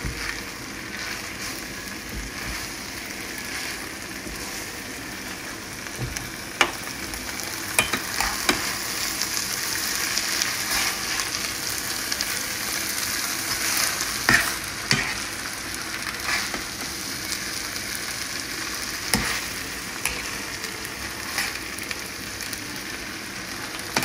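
Spaghetti bolognese sizzling in a hot nonstick pan as it is tossed and stirred with a slotted spatula. Scattered clicks and scrapes of the utensils against the pan sound over a steady frying hiss.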